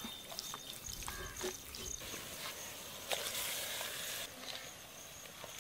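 Soft clicks and rustles of hands handling raw chicken, then about three seconds in a rushing hiss of water as the chicken goes into a clay pot, cutting off suddenly. A thin, steady high tone runs underneath.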